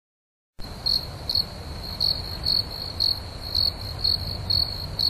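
Crickets chirping: a steady high trill with louder chirps about twice a second, over a low rumble. It starts about half a second in and cuts off abruptly at the end.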